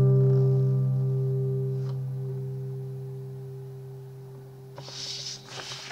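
Final chord of an acoustic guitar ringing out and slowly fading away. Near the end there are a few short rustling noises.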